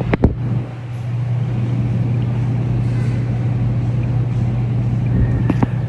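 Steady low drone of a car's engine and road noise heard from inside the moving vehicle, with a sharp knock just after the start and another near the end.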